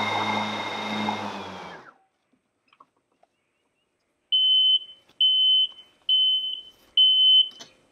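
Ryobi RY48ZTR75 electric zero-turn mower's blade motors whirring, then winding down and stopping within about two seconds as the blades are switched off. After a pause, four evenly spaced high electronic beeps from the mower's warning beeper as the operator leaves the seat.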